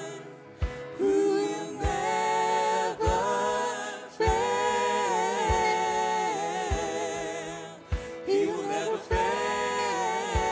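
Live worship music: a band's mixed men's and women's voices singing a slow song together over a steady low beat of about one thump a second.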